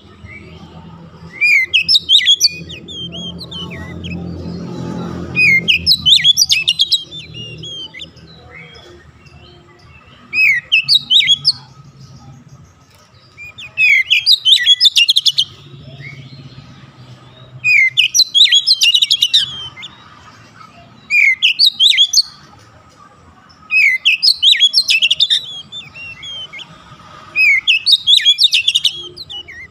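Oriental magpie-robin singing: loud, short phrases of rapid, varied whistles and chattering notes, repeated every three seconds or so with brief pauses between.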